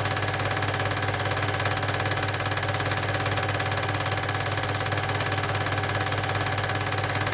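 8 mm cine projector running: a steady mechanical whir with a fast, even clatter from the film advance over a constant low hum.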